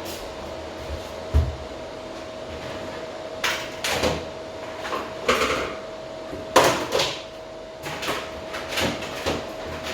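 Kitchen clatter: about half a dozen irregular knocks and clunks of utensils, dishes and pots being handled, the sharpest one past the middle, over a steady faint hum.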